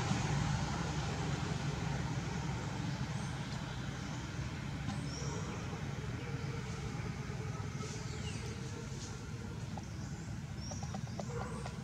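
Steady low rumble of road traffic, easing off over the first few seconds, with several short high chirps scattered through.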